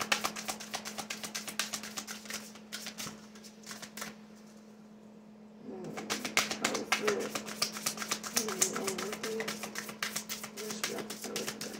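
Oracle card deck being shuffled by hand: a fast run of crisp clicks, pausing for about three seconds midway, then resuming. A steady low hum runs underneath.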